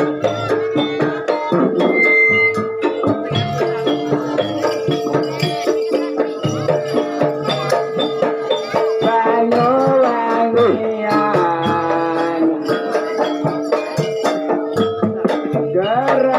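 Kuda lumping music: a steady drum-and-percussion rhythm under a held melody note, with a wavering, gliding melody line around the middle.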